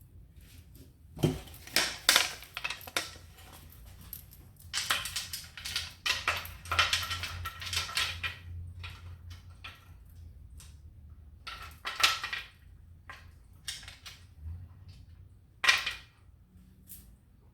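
Scattered clicks, light rattles and rustling in short bursts, a beaded necklace and its beads being handled.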